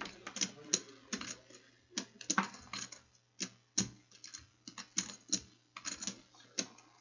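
Irregular sharp clicks and taps, a few a second in uneven clusters, over a faint steady hum.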